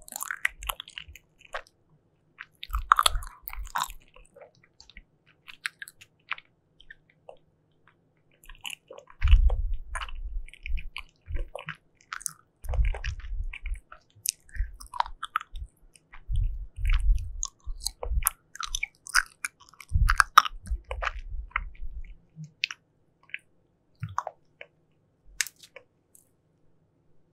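Close-miked chewing of soft, chewy jelly candy: sticky, wet mouth clicks and squelches in several spells of chewing, with short quiet pauses between.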